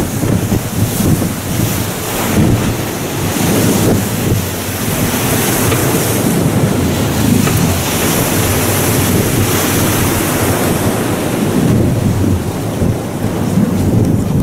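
Wind buffeting the microphone and water rushing and slapping against the hull of an aluminium motorboat running through choppy sea, in steady gusts.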